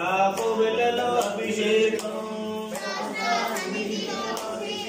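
Voices chanting an Ayyappa devotional bhajan together in a sung, repeating line, over a steady low drone.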